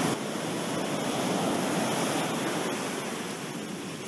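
Ocean surf breaking and washing up a sandy beach: a steady rush of noise that eases a little in the second half.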